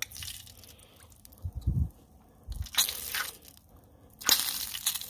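A hand fishing a pickled pepperoncini out of an open glass jar: a couple of low thumps, then two short bursts of rustling, wet squishing handling noise.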